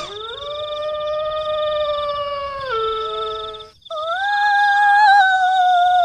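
Two long, drawn-out howling wails, each held then sliding down in pitch, the first breaking off a little more than halfway through; presented as the cry of a kuntilanak ghost. A steady high trill runs behind them.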